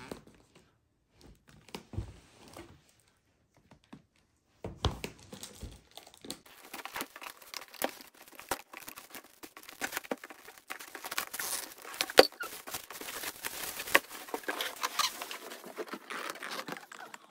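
Packaging of a Pokémon card collector's chest being torn and crinkled open by hand. A few small knocks at first, then continuous crackling and tearing with sharp clicks for the second half.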